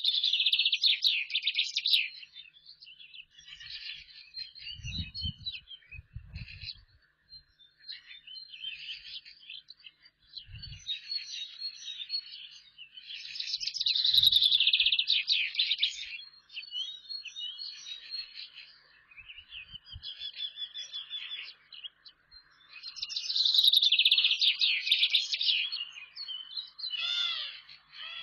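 Songbird singing a high trilled phrase about two seconds long, three times at roughly ten-second intervals, with softer bird chirps in between.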